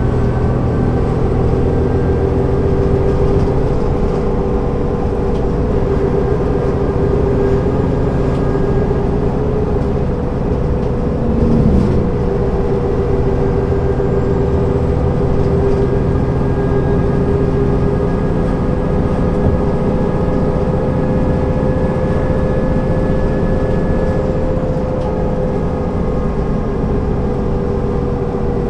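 Diesel engine of a 1998 MAN NG 262 articulated city bus running steadily under way, a constant engine drone over road rumble that drifts gently in pitch. A single thump a little before halfway through.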